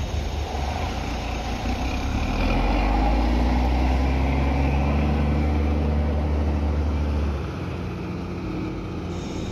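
Heavy diesel truck engine running close by as a long flatbed truck drives past. The low engine note grows louder about two and a half seconds in and drops away about three quarters of the way through.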